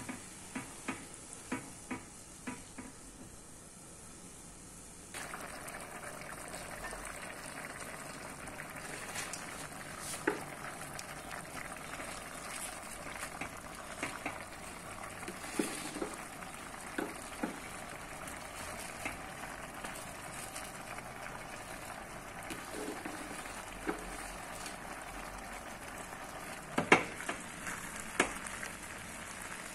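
Pot of mung bean stew simmering while being stirred with a silicone spatula: a few light clicks of the spatula in the pot at first, then, after a sudden step up, a steady bubbling hiss of the simmering broth with scattered knocks of the spatula and greens going in, the loudest knocks near the end.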